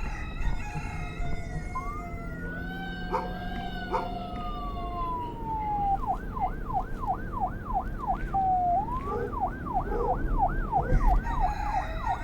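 Police siren: a slow wail rises about two seconds in and falls away, then the siren switches to a fast yelp sweeping up and down about two to three times a second. The yelp breaks briefly for a short rise near the middle, then resumes.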